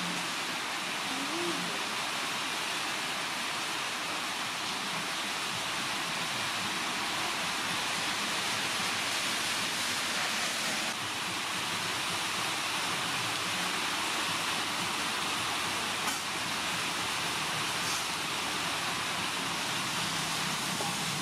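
Steady, even hiss of water, with a couple of faint clicks near the end.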